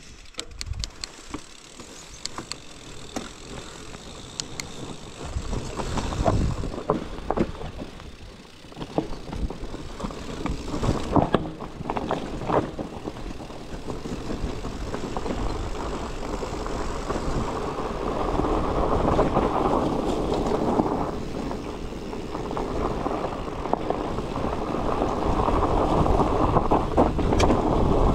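Bicycle being ridden over a rough trail: scattered knocks and rattles in the first dozen seconds, then a rushing noise of wind on the microphone that grows louder.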